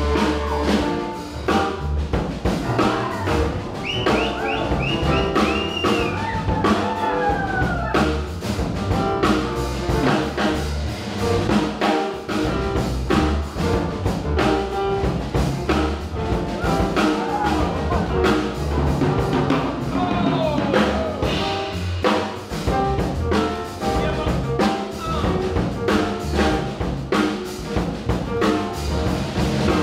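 Live band playing: a drum kit keeps a busy beat over a deep upright bass line, with a few sliding higher notes over the top.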